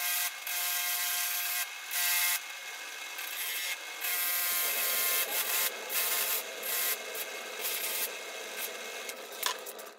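Bench grinder running with a fiber wheel while the steel hammer head is worked against it: a rubbing hiss that rises and falls as the steel is pressed on and eased off, over the motor's steady hum.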